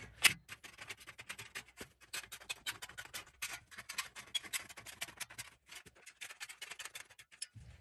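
Aviation tin snips cutting a series of notches in the sheet-metal flange of a furnace filter rack: quick, irregular metallic snips and clicks, several a second.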